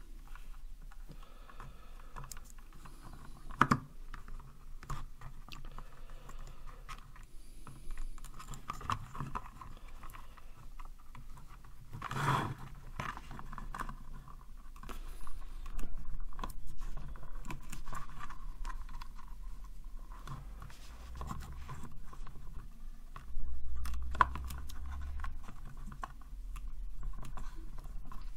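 Hands handling a small circuit board and its wires in a plastic enclosure: irregular scraping and rustling with a few sharp clicks.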